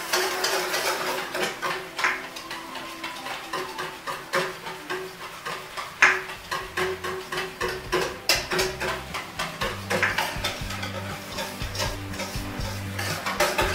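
Yeast being stirred into warm milk in a stainless-steel bowl: a run of quick scraping and tapping strokes against the metal. Background music with a low bass line comes in about halfway.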